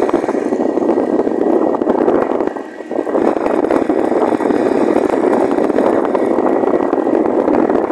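Steady rush of wind and road noise on the microphone of a moving motorcycle. The noise dips briefly about two and a half seconds in.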